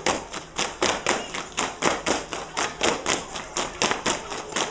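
A group of girls beating out a fast, even rhythm in unison: about four sharp, loud beats a second.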